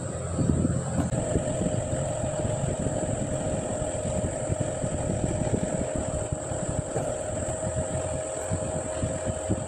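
Metal lathe running steadily with an air breaker hammer piston held in its three-jaw chuck: an even low rumble with a faint steady hum.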